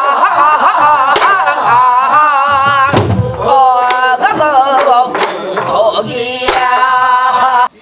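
Korean traditional folk-style singing with a wide, wavering vibrato, over occasional drum strokes; the music cuts off suddenly near the end.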